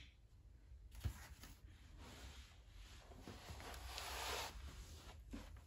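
Faint rustle of a person shifting and getting up from the table, with a soft knock about a second in.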